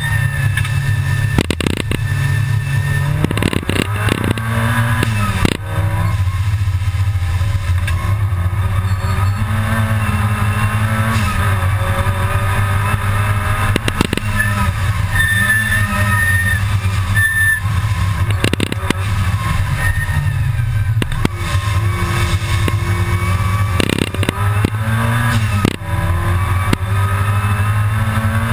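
Supercharged G60 engine of a Mk II Volkswagen Golf GTI race car, heard from inside the cabin at racing speed. Its note rises and falls again and again as it is driven hard through the corners and gears.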